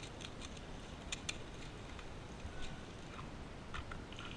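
Faint, scattered sharp clicks and ticks at irregular intervals over a quiet outdoor background.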